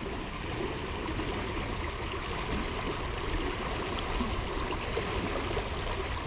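Creek water rushing steadily over a shallow, rocky bed, strong enough current to wade against.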